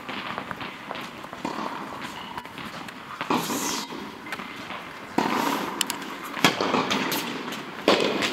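Tennis ball struck by rackets and bouncing on the court: a scatter of sharp pops, coming thicker and louder in the second half.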